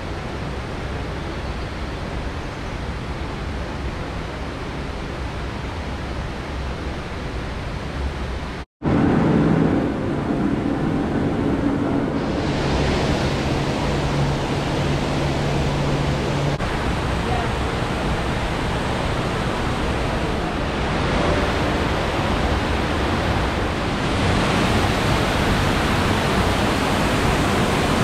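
Steady rushing noise of falling water filling a large hall, cut by a brief dropout about nine seconds in. It grows louder and brighter in the last few seconds as the indoor waterfall comes close.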